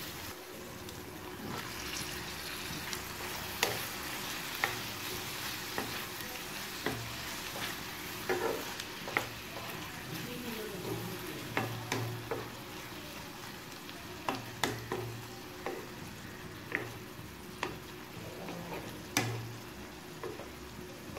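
Sliced onions and chopped tomatoes sizzling in hot oil in a pan, with a steady frying hiss. A stirring utensil scrapes and knocks against the pan in irregular sharp clicks as the mixture is stirred.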